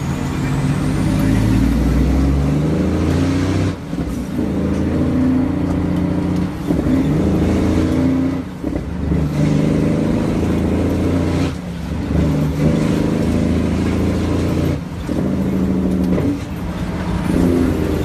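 Cummins ISX inline-six diesel of an International 9400 truck running hard under load, heard from inside the cab, with about five brief drops in engine sound as the driver shifts through the 13-speed manual gearbox.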